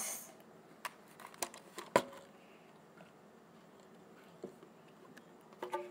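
A few scattered light clicks and knocks of toys being handled, a toy car being put down and another toy picked up, the loudest knock about two seconds in, over quiet room tone.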